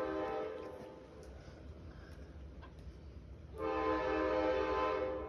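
Train air horn blowing twice: a short blast at the start that fades away within about a second, then a longer, louder blast of about a second and a half starting about three and a half seconds in. A low rumble runs underneath.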